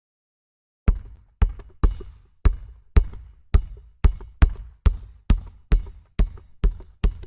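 Basketball being dribbled: a steady run of bounces, about two a second, each a deep thump that dies away quickly, starting about a second in.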